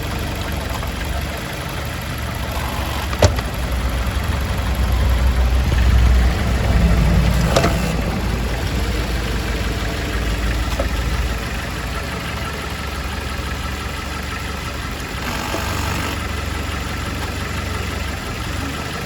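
A car engine idling steadily, with two short sharp clicks, about three and seven and a half seconds in.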